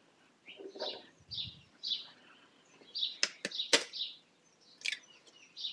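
A few sharp taps and cracks as an egg is broken open with a metal utensil, the loudest about two-thirds of the way through. Short high bird chirps repeat throughout.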